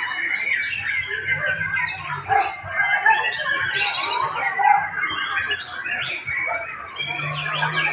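Many caged songbirds singing at once, a dense overlapping chorus of rapid chirps and trills.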